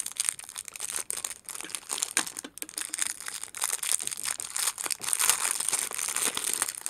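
Plastic packaging crinkling and rustling as it is handled, a dense run of small irregular crackles.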